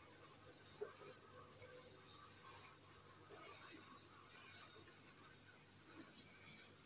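Steady high hiss from a gas burner and the long eggplant roasting over its flame on a wire rack.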